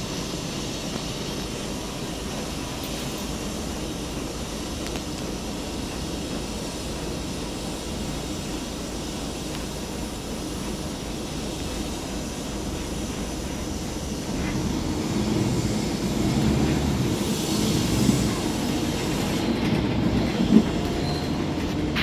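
Interior noise of a Mercedes-Benz OC500LE bus under way: a steady rumble of engine and road noise, growing louder about two-thirds of the way through, with a couple of sharp knocks near the end.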